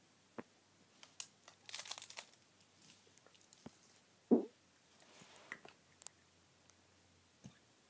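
Soft, scattered crinkling of a candy wrapper and quiet chewing of a piece of candy, with small clicks and one brief voiced "mm" about four seconds in.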